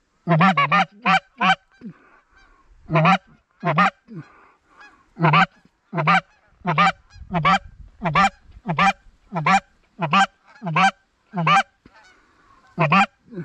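Canada goose honks, loud and close: a quick run of five at the start, then a steady series about one every 0.7 s, with fainter honking in between.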